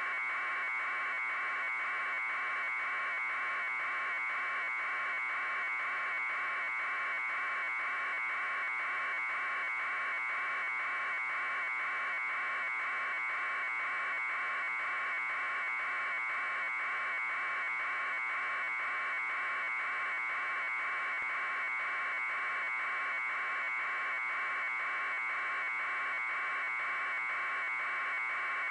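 Steady buzzing noise with a fast, even pulsing, held at one level in a narrow mid-high band.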